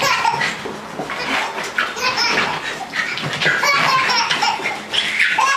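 A baby laughing in repeated bursts of belly laughter.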